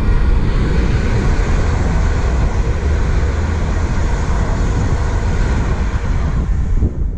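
Class 350 Desiro electric multiple unit passing close by at speed: steady wheel-on-rail noise and rushing air that fade away near the end as the train clears.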